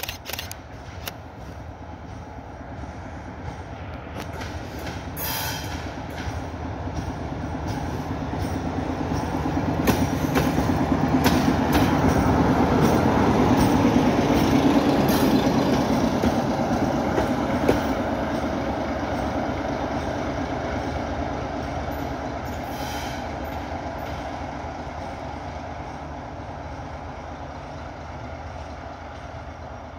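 TGM4 diesel-hydraulic shunting locomotive running light: its diesel engine drone and wheels on the rails grow louder as it approaches, pass close about halfway through, then fade as it moves away.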